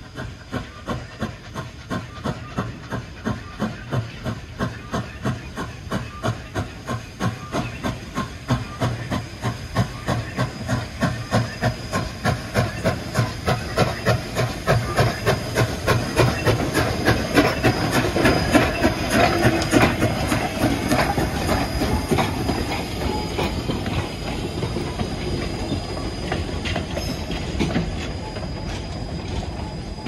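East Broad Top 2-8-2 No. 16 steam locomotive working under steam: a regular exhaust chuff that quickens and grows louder as the engine gets moving, then blurs into a steadier rolling rumble with wheels clicking over rail joints near the end.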